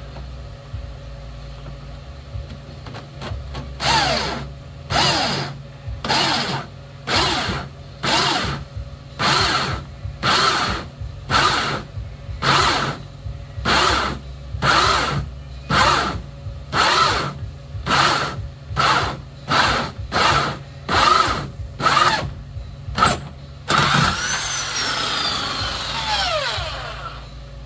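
Power drill driving a hole saw into the boat's dash panel. The trigger is pulsed in about twenty short bursts, roughly one a second, each revving up and coasting down. Near the end it is held for about three seconds, then released so the motor winds down.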